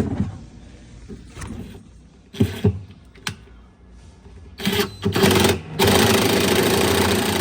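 Power drill driving down a washer agitator's hold-down bolt: a few short bursts of the motor, then a steady run of about a second and a half that stops abruptly near the end.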